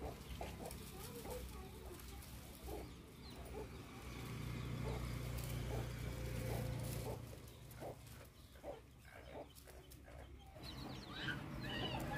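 Chickens clucking in short repeated calls, with higher calls near the end, over the rustle and crackle of dry twigs being gathered into a bundle.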